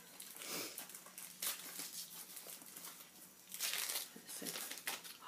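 The paper wrapper and inner foil of a chocolate bar being torn and crinkled open, in an uneven run of rustles and crinkles that is loudest about three and a half seconds in.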